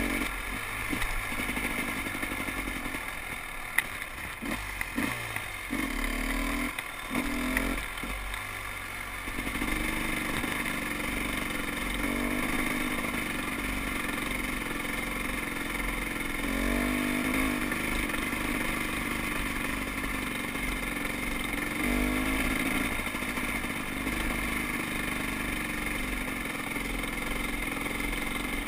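2012 KTM 300 XC-W dirt bike's two-stroke single-cylinder engine running under way, the throttle shut and opened several times in the first ten seconds, then held mostly steady with a couple of rises in pitch later on.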